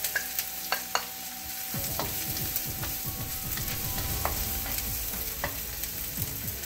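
Chopped shallots and garlic sizzling in oil in a wok, with a few sharp clicks of a spatula against the wok and plate in the first second. From about two seconds in, the spatula scrapes and stirs the mixture round the pan.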